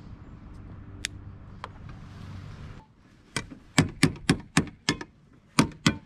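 A steady low hum with two light clicks; then, after a sudden drop in background, about nine sharp clicks and knocks in quick succession from handling the smoke tester's canister and lid.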